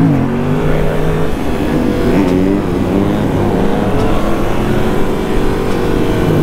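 Yamaha FZ-07's parallel-twin engine heard from the bike while riding. Its pitch dips at the start, climbs about two seconds in as the throttle is opened, then holds steady under wind and road noise.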